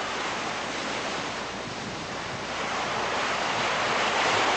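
Steady rushing of wind and sea surf, growing a little louder near the end.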